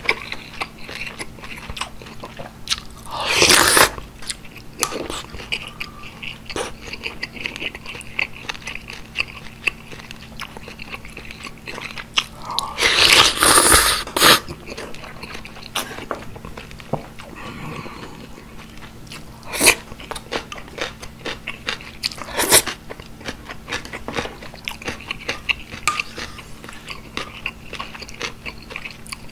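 Close-miked eating sounds from a bowl of beef and pork rice soup with thin noodles: wet chewing and small mouth clicks throughout. Two loud slurps stand out, one about three and a half seconds in and a longer one about thirteen seconds in as noodles are sucked up, and a couple of sharper clicks come later.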